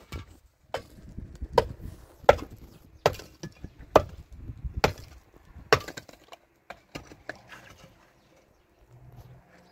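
A run of sharp knocks, about nine blows at a steady pace of a little more than one a second, the last couple weaker, then stopping near the end.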